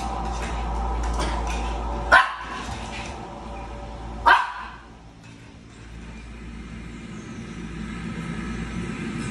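Small dog barking twice, two short sharp barks about two seconds apart.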